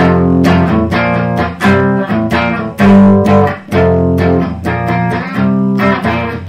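Clean, undistorted electric guitar playing a rhythm-guitar riff of repeated chords in a steady pattern. It is a fine sound but not the distorted tone that pop punk calls for.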